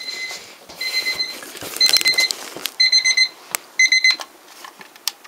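Alarm clock going off: high pitched electronic beeps in short rapid bursts about once a second, growing louder over the first bursts, then cut off about four seconds in. A few sharp clicks come between the last bursts.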